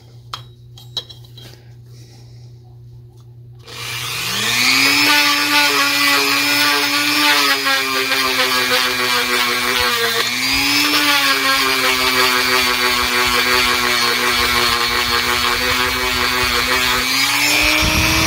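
A Dremel rotary tool with a sanding drum starts about four seconds in, spins up to a steady high whine and runs while reaming out the bore of a metal spinning-reel spool that fits too tightly on its shaft. Its pitch sags briefly about halfway, then it is switched off near the end. A few light clicks of handling come before it starts.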